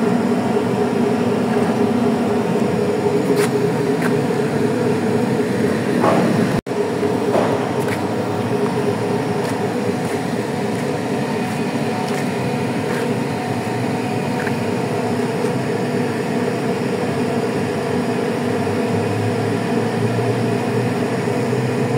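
Steady mechanical drone of a purse seiner's engine and net-hauling gear running while the net is hauled aboard. The sound breaks off for an instant about six and a half seconds in.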